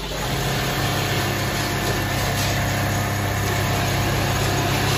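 Richpeace automatic sleeping bag sewing machine running at speed: a steady, fast mechanical hum of stitching that starts a moment in and holds even.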